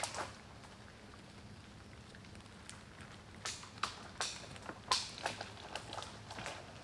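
Dead twigs and branches snapping and crackling as a long pole is lifted and carried through forest undergrowth: a short crackle at the start, then a string of sharp separate cracks from about halfway through.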